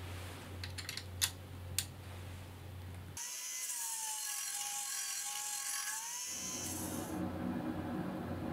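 Several sharp metal clicks as the guard on a Nitto Kohki pneumatic belt sander is swung to a new angle. About three seconds in, the sound changes suddenly to a steady high hiss with a whining tone that dips and recovers.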